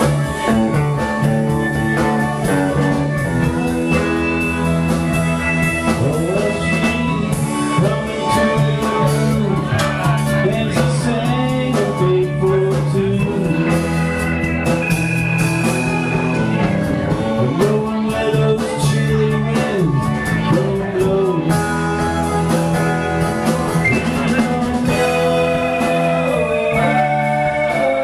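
Live rock band playing together: electric guitar, fiddle, electric keyboard and drum kit.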